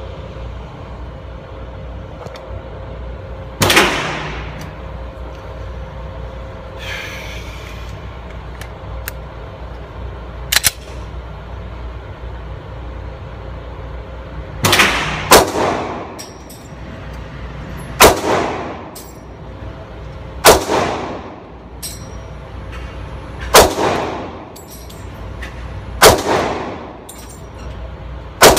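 Generation 3 Glock 22 .40 calibre pistol firing single shots at an indoor range, each crack followed by a long echoing tail. After one early shot and a lighter crack, a run of about seven shots starts about halfway through, one every two to three seconds with a quick pair at the start, over a steady ventilation hum.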